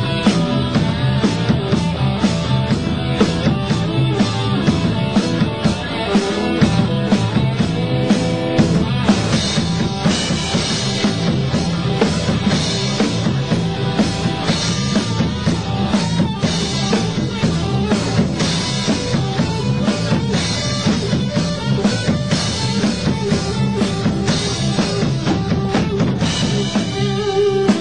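Instrumental blues-rock jam: a drum-kit beat with electric guitar playing over it.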